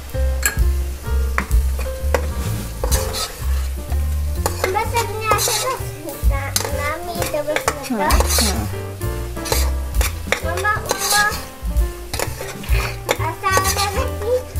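Sprouted moth beans sizzling in hot oil in a pressure cooker pot as a steel spoon stirs them, scraping and clinking against the pot many times.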